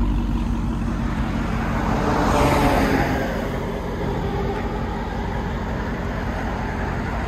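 Supercharged 6.2-litre Hemi V8 of a Dodge Charger Hellcat with a Borla exhaust driving off down the road. Its exhaust note swells as it passes about two to three seconds in, then fades to a steady drone.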